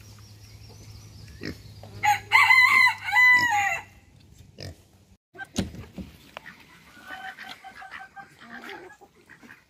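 A rooster crows once about two seconds in, a crow of nearly two seconds and the loudest sound here. Hens cluck softly later on, with a single knock midway.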